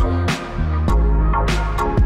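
Background electronic music with a deep bass line and a drum beat.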